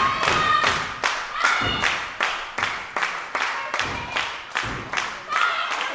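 Audience clapping in unison, a steady beat of about two to three claps a second, with a few shouts from the crowd over it.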